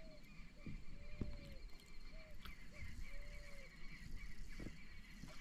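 Faint animal calls: short, low, arching calls about once a second over a steady high pulsing trill.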